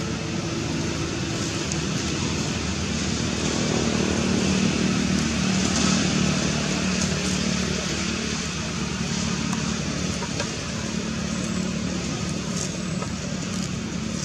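Steady low hum of motor vehicle engines, like traffic running close by, swelling slightly mid-way.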